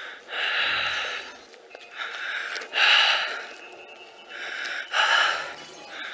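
A person breathing heavily: several loud, hissing breaths, one after another, with short pauses between them.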